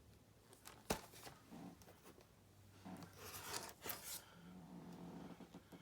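Faint rustling and rubbing of comic books in plastic bags being handled, with a single sharp click about a second in.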